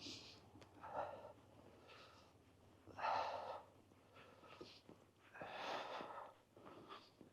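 A person breathing audibly close to the microphone: a series of short, soft, breathy exhalations about a second or two apart.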